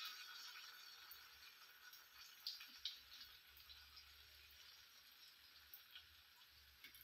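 Faint sizzle of hot oil around freshly poured kalthappam batter in an aluminium pan, dying away, with a few light clicks.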